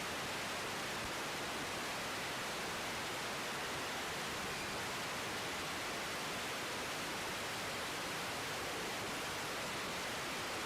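Steady, even hiss of static on an air traffic control radio feed between transmissions.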